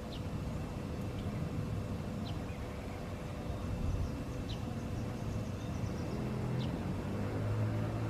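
Steady low rumble of road traffic, with a vehicle's engine coming up near the end. Faint short high chirps of a bird sound now and then over it.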